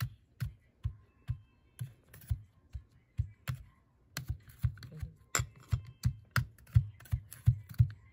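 The bottom of a drinking glass tamping buttered graham cracker crumbs into a round metal cake pan, making a run of short knocks, two to three a second.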